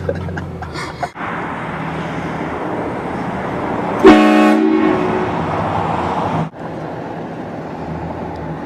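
Train horn blasting one loud, short chord about four seconds in, over a steady rushing noise that cuts off abruptly a couple of seconds later.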